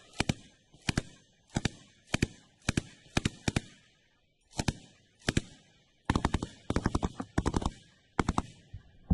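Belt-fed machine gun firing short bursts of a few rounds each, about a dozen bursts with brief pauses between them.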